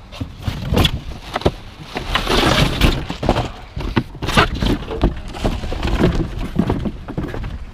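Rummaging through junk in a dumpster: a quick run of knocks, clanks and rattles as items are shifted and pulled about, with a longer crashing clatter about two seconds in.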